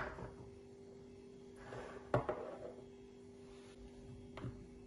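Bowls being handled and set down on a kitchen countertop: a sharp knock at the start, a brief rustle and another sharp knock about two seconds in, and a light tap near the end, over a faint steady hum.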